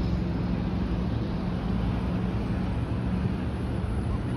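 Steady road noise while riding a bicycle in traffic: wind on the microphone and rolling noise, with a steady low hum.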